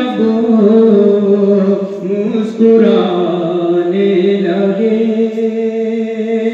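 A man humming a naat melody without words, in long held notes that slide from one pitch to the next, into a microphone.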